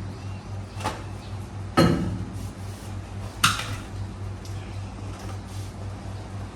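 Three metallic clanks and knocks from work on a wheel balancer, the loudest a heavy clank about two seconds in, over a steady low machine hum.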